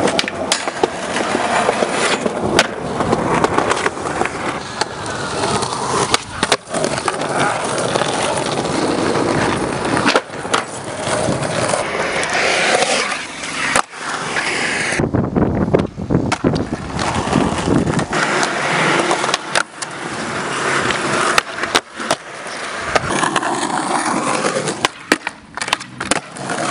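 Skateboards rolling on concrete, with a metal handrail grind and many sharp clacks from tail pops and landings.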